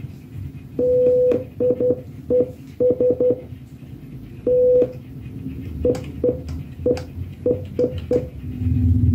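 Electronic beeps at a single pitch, switched on and off in short and long pulses in a Morse-code-like pattern, over a steady low hum.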